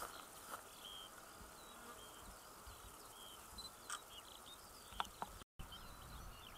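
Faint countryside ambience of small birds: many short, high chirps and twitters, with a few soft clicks and a brief drop to silence about five and a half seconds in.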